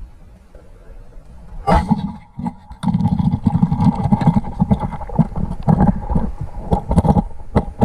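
Underwater sounds of a spearfisher handling his speargun: a sudden sharp crack about two seconds in, then churning water with many sharp knocks and clatters.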